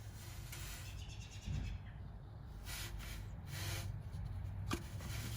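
An oil sensor's plastic wiring connector being worked and slid off by hand: short scraping, rustling handling noises, then a sharp click near the end.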